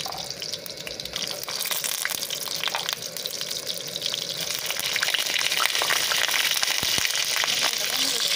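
Whole pointed gourds (potol) sizzling and crackling in hot mustard oil in a kadai as they are dropped in one by one. The frying grows louder about halfway through.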